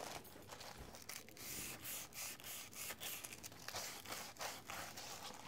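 Fine-grit sandpaper rubbed back and forth by hand over a small picture frame, a faint scratchy hiss in quick repeated strokes. It is scuffing the frame's slick finish to give it tooth for paint.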